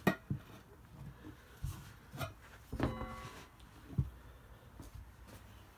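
Tire irons clinking and scraping against a steel wheel rim while the tire is pried off by hand: a few separate sharp knocks with quieter rubbing and scraping between them.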